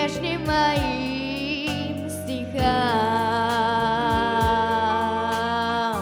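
A girl's solo voice holding long sung notes over a pop backing track: the first note wavers with vibrato, and a second long, steady note starts a little past halfway through the first half and is held almost to the end.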